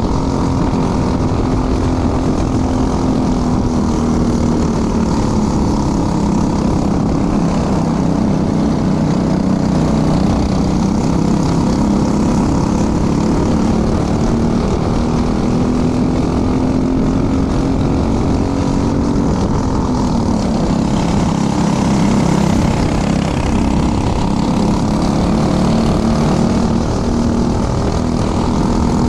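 Racing kart engine running hard, heard onboard the kart, its pitch dipping and rising as the kart slows and accelerates through the corners.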